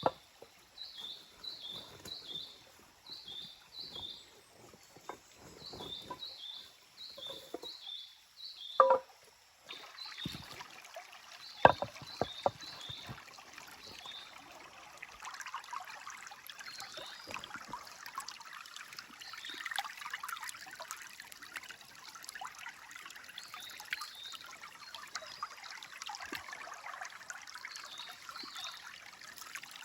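Stream water trickling and rushing, louder and fuller from about ten seconds in. Over it a bird chirps in short repeated high notes during the first third, and there are two sharp knocks, one about nine seconds in and one about twelve seconds in.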